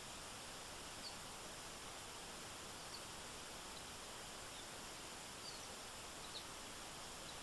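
Faint steady rushing hiss of a forest stream, with a few short, high-pitched chirps breaking through about one, three, five and a half and six seconds in.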